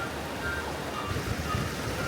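Background music with short repeated notes over the steady rush of a river.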